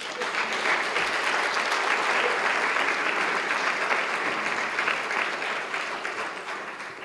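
Audience applauding: steady clapping from many hands that dies away near the end.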